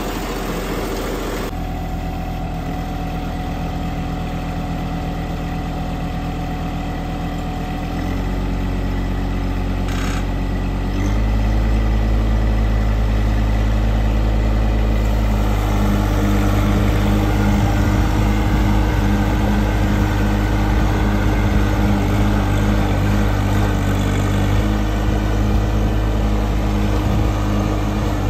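John Deere sub-compact tractor's diesel engine running steadily, stepping up in engine speed about eight and again about eleven seconds in as it drives with the rear sweeper broom attached.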